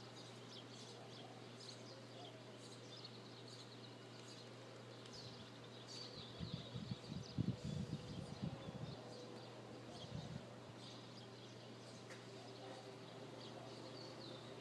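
Many small birds chirping faintly, short high calls overlapping throughout, over a steady low hum. From about six to nine seconds in, low rumbling bumps rise louder than the birds.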